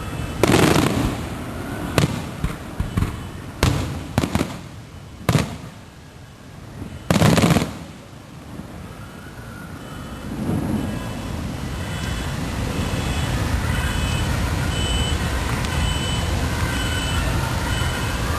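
Fireworks shells exploding: several loud sharp bangs with rumbling tails in the first half, the last and longest about seven seconds in. From about ten seconds in, a steady mixed background din rises, with faint wavering tones in it.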